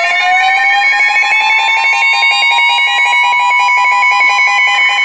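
Emergency Alert System attention tones announcing a severe thunderstorm warning: a steady electronic alert tone with rapidly pulsing tones over it, and a siren-like tone that rises in pitch and levels off within the first second or two.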